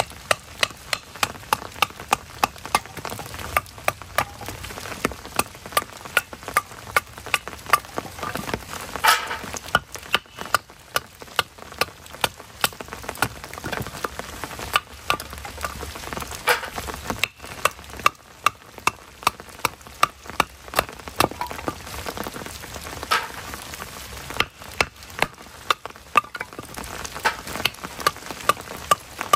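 Knife being batoned through small pieces of firewood: repeated sharp knocks of a baton on the knife's spine, irregular and a little over one a second, over steady rain.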